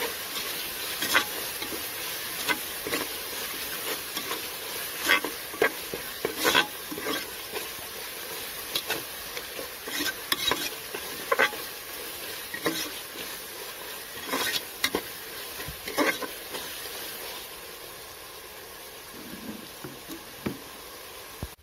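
Onions, ginger-garlic paste and green chillies frying in oil in a pressure cooker, a steady sizzle. A spoon scrapes and knocks against the pot in irregular clicks as the mixture is stirred, and the stirring thins out near the end.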